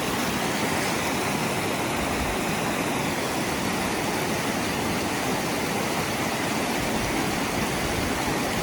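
Waterfall cascading down over rocks: a steady, loud rush of water.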